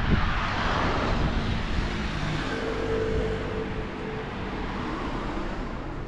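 A road vehicle, most like a car, passes by and its sound fades away over the few seconds, with a few steady engine tones in the middle.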